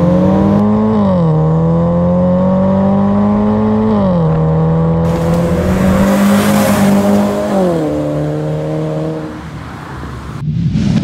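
Hyundai Kona with an aftermarket full exhaust system accelerating hard, its exhaust note climbing and then dropping with each of three upshifts, and passing close by about two-thirds of the way in before fading away. A whooshing sound effect starts near the end.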